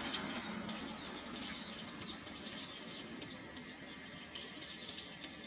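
Water from a pipe pouring and splashing over a dog's back and onto wet concrete, a steady splashing that eases slightly, with a few bird chirps in the background.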